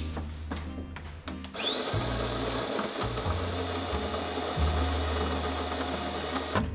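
De'Longhi automatic espresso machine's built-in burr grinder grinding coffee beans after a button press: its motor starts about a second and a half in with a quickly rising whine, runs steadily, then cuts off suddenly near the end.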